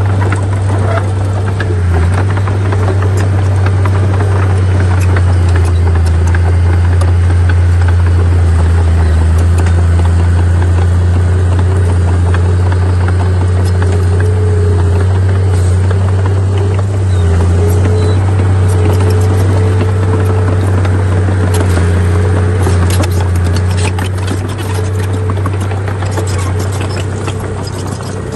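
Heavy diesel earthmoving machinery running steadily with a deep engine hum, and rattling and clicking in the last several seconds.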